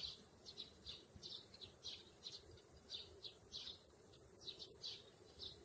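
Sparrows chirping: a steady run of short, high chirps, about three to four a second.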